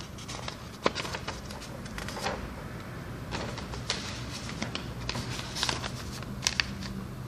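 Irregular small clicks, taps and scratchy rustles, the sharpest about a second in, over a low steady hum.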